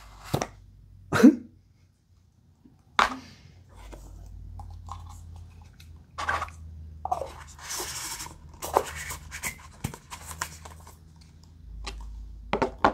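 Handling and opening a tube-shaped product package: scattered taps and knocks, a scraping slide about halfway through as a small glass jar is drawn out of the tube, and clicks of glass and packaging on the tabletop near the end.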